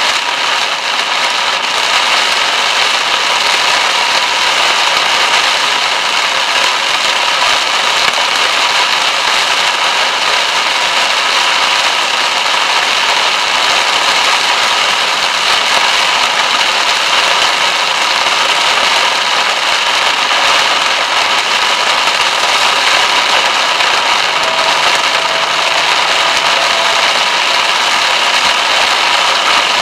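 Heavy rain drumming hard and steadily on a car's roof and windscreen, heard from inside the moving car over its engine and tyre noise.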